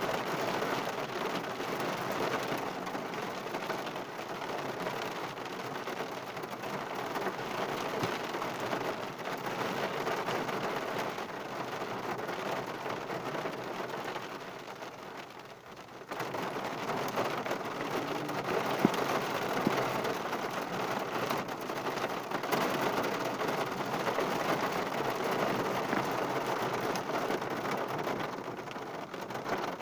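Heavy rain pattering on a car, heard from inside the cabin as a dense, steady hiss. It eases slightly about halfway, then comes back abruptly at full strength.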